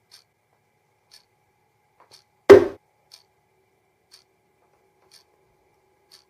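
A clock ticking steadily about once a second, with one loud, short thump about two and a half seconds in.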